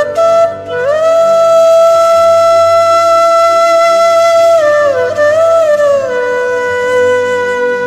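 Slow solo melody on a wind instrument. A long held note is reached by a slide up early on, and near the end it slides down onto a lower held note.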